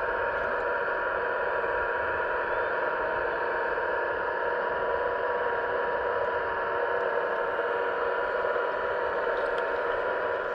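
Electric motors and hydraulic pump of 1/15-scale RC construction machines running with a steady whine.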